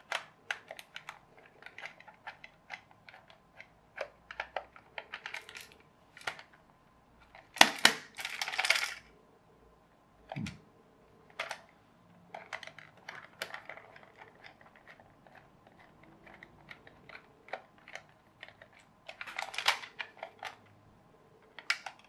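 Small screwdriver working screws out of a plastic toy bulldozer: scattered light clicks and scrapes of the metal tip and screws against the plastic body, with louder clattering twice, about eight and twenty seconds in.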